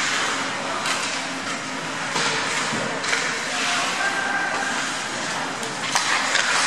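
Ice hockey game in play on an indoor rink: a steady rushing noise of skates on the ice and the arena, broken by a few sharp clacks of sticks and puck.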